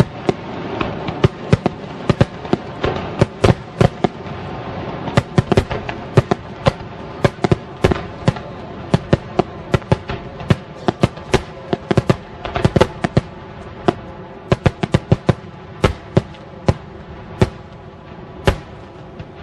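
Fireworks going off in quick succession: many sharp bangs, several a second at irregular spacing, over a continuous crackling rumble, thinning out a little toward the end.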